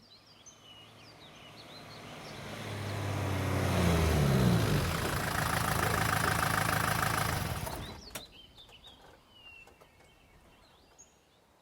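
A motor vehicle's engine grows steadily louder as it approaches, its pitch rising, then cuts off suddenly about eight seconds in. Birds chirp faintly before and after.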